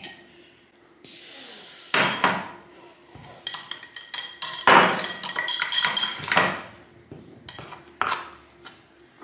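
A spoon stirring pizza dough in a mixing bowl, knocking and scraping against the bowl in an irregular run of clinks from about two seconds in.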